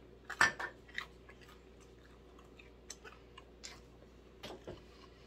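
Close-up chewing of a bite of cheese pizza: short wet mouth clicks and crunches, loudest about half a second in, then sparser ones.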